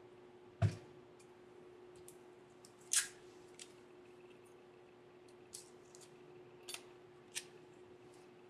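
Small handling noises of parts and tools on a desk: a soft thump about half a second in, a short scraping rustle near three seconds, then a few light clicks, over a faint steady hum.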